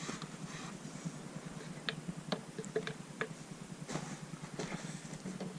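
A scatter of light clicks and taps from hands handling small objects, over a faint steady background hum.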